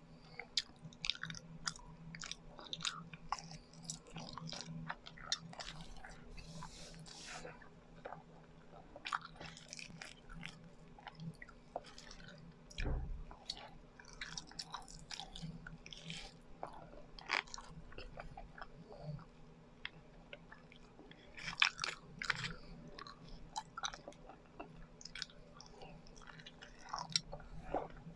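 Close-miked chewing of biko, a sticky sweet rice cake, with many short wet, sticky mouth clicks and smacks. There is a brief hiss about six seconds in and a low thud about halfway through.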